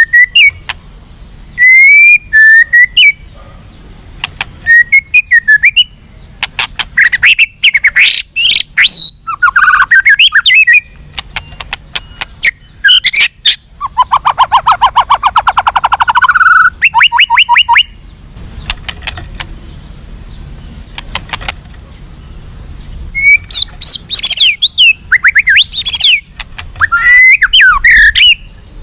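White-rumped shama singing a loud, varied song: whistled phrases, fast chattering trills and sharp clicking notes, with a harsh, rapid rattle in the middle, broken by short pauses. It is the aggressive 'fighter' song that keepers play to make other shamas respond.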